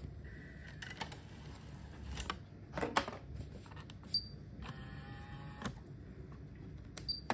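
Pioneer DEH-P7000UB car stereo's motorized flip-down front panel at work: several mechanical clicks, the loudest about three seconds in, a short high beep, then about a second of motor whir as the panel closes. A click and another short beep come near the end.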